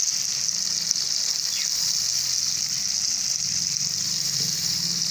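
Tiny fish sizzling steadily in hot oil in a wok while being mixed by hand.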